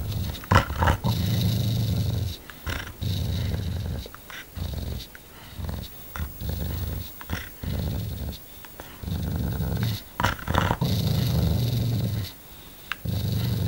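An Australian cattle dog (blue heeler) growling and snarling in repeated low bouts of a second or two each, with teeth bared, as a warning at a hand held close to its face. A few brief, sharp sounds break in, the loudest about half a second in.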